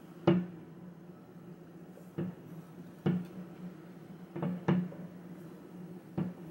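A handful of short knocks and thumps at uneven spacing, the loudest about a third of a second in, over a steady low hum.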